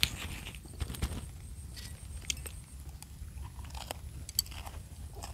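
Close-up eating sounds: a person biting and chewing a wrap of grilled snakehead fish and fresh herbs, with scattered small crunches and clicks.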